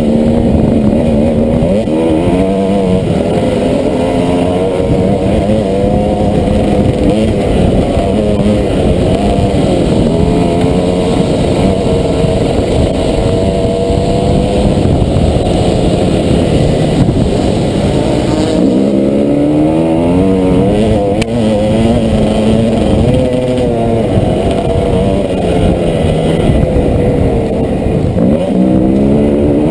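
Dirt bike engine running under way, heard from the rider's helmet, its pitch repeatedly rising and falling with throttle and gear changes.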